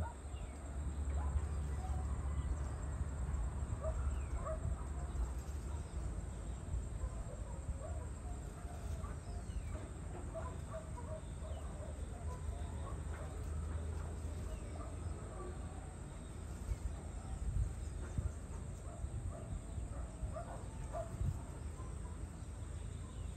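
Rural outdoor ambience: scattered short bird chirps and calls over a low rumble that is strongest in the first six seconds or so.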